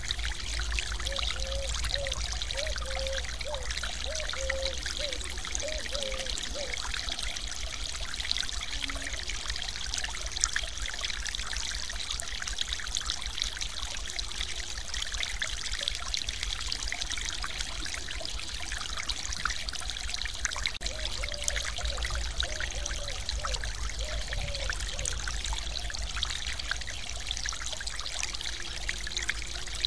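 Stream water pouring and splashing over a small weir in a steady, unbroken rush.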